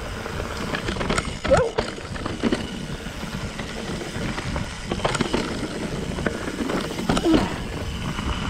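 Mountain bike rolling fast down a dry dirt singletrack: tyres running over dirt and dry leaves and the bike rattling over bumps, with two louder clattering jolts carrying a short squeak, about a second and a half in and again about seven seconds in.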